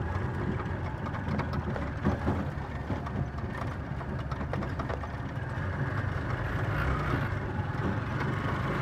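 Vehicle engine running, heard from inside the passenger cabin, with many short clicks and rattles from the loose metal body, busiest in the first few seconds.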